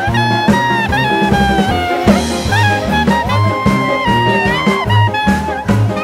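Instrumental background music: a melody of held and sliding notes over a steady bass and drum beat.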